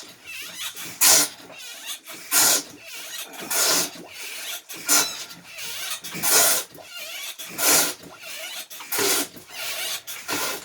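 A manual bilge hand pump worked in steady strokes, about one every 1.3 seconds, eight in all. Each stroke is a short, noisy rush of bilge water being sucked through.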